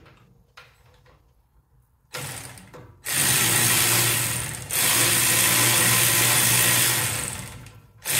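Cordless electric ratchet whirring as it spins a 9/16 socket to back off the exhaust manifold collar nuts: a short burst about 2 s in, two longer runs of about one and a half and three seconds, and a short run starting near the end.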